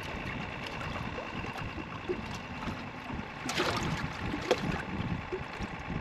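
Water lapping against a small fishing boat's hull, with light wind on the microphone; a brief louder splash-like rustle comes about three and a half seconds in.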